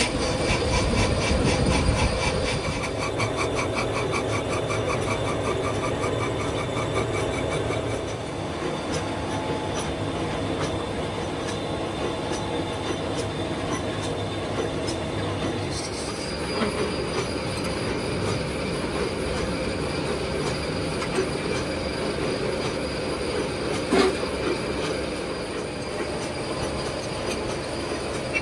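Metal lathe running, its cutting tool scraping through a cast timing-gear blank with a steady squealing, under the running of other workshop machines. A regular ticking in the first several seconds, and one sharp knock about 24 seconds in.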